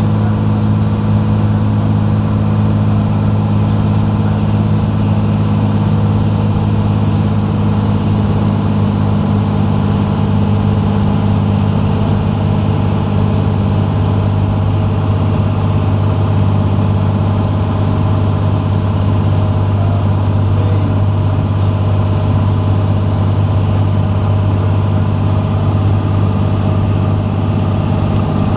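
Cessna 182's six-cylinder piston engine and propeller droning steadily in flight, heard from inside the cabin.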